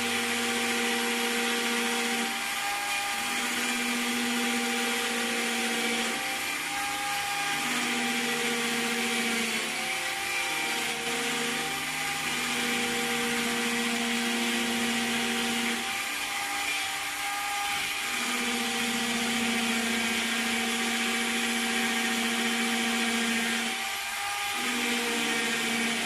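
Electric drill running under load, a long twist bit boring the latch hole into the edge of a wooden door. A steady motor whine whose tone briefly wavers every few seconds as the bit bites into the wood and is eased back.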